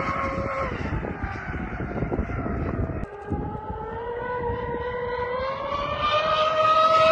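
High-speed RC powerboat's brushless electric motor (LMT 3060/6 on a 14S pack) whining with the propeller, over a rough rushing noise. The whine falls in pitch under a second in, then from about three seconds in a new whine rises steadily in pitch and grows louder as the boat speeds up.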